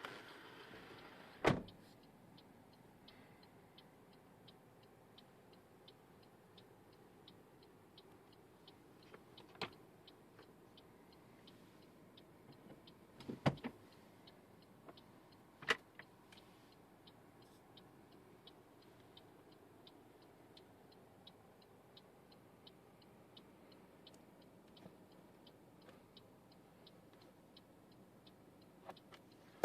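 Faint regular ticking, about two ticks a second, inside a parked car, with a few sharp, louder clicks and knocks; the loudest comes about a second and a half in.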